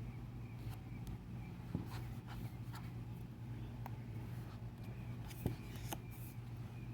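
Thick paper pages of a photobook being handled and turned: light rustles and scattered small taps, with two sharper taps, one just under two seconds in and one about five and a half seconds in, over a steady low hum.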